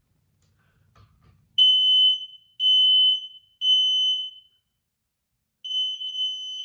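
Smoke alarm sounding its test alarm: a high-pitched beep in groups of three, with three beeps, a pause of about a second, then three more. The pattern shows the alarm is working.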